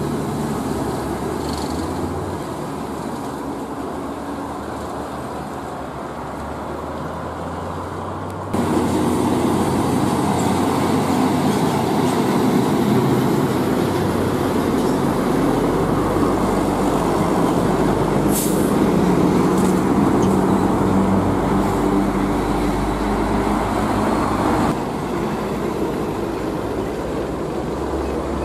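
Heavy diesel trucks driving slowly past one after another, each engine giving a steady drone under tyre and road noise. The sound jumps louder about eight seconds in and drops back near the end, where the truck is a Hino Ranger FM 320TI tractor hauling an LPG tanker. A short hiss comes about two-thirds of the way through.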